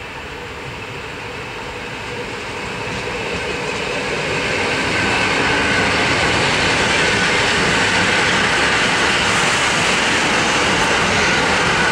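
EN57 electric multiple unit approaching and running past along a station platform, the noise of its wheels and motors growing louder over the first five seconds, then holding steady as the cars go by.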